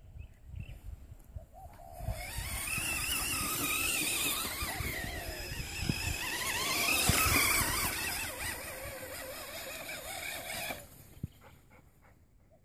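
Electric motor of a Redcat Volcano EPX RC monster truck whining as the truck is driven over grass, its pitch wavering up and down with the throttle. It starts about two seconds in and cuts off suddenly about two seconds before the end.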